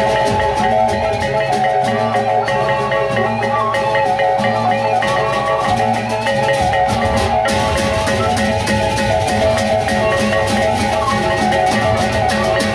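Sasak gendang beleq gamelan playing loudly. Pitched metal gongs repeat a fast melody over low drum strokes, while hand cymbals clash in a quick steady beat.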